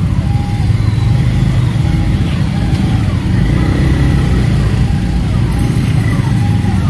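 TVS Raider 125's single-cylinder engine running at low speed in slow, congested street traffic, with a steady low rumble from the surrounding vehicles. A faint warbling tone repeats over and over in the background.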